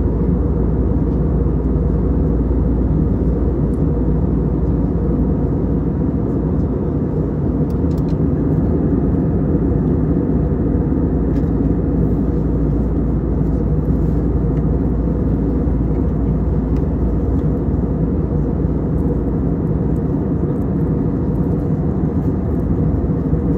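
Steady cabin noise of an Airbus A320neo in flight, heard from inside the cabin: a deep, even rush of airflow over the fuselage blended with the drone of its two CFM LEAP-1A engines, unchanging throughout.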